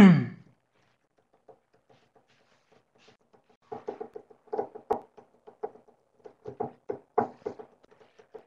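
A brief loud falling-pitched sound right at the start, then, from about four seconds in, a run of short irregular scratchy strokes of a marker writing on a whiteboard.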